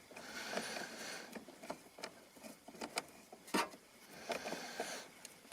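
Small screwdriver turning a screw to tighten down a motherboard's M.2 SSD heatsink: soft scraping for the first second or so, then scattered light clicks of metal on metal, the sharpest about three and a half seconds in.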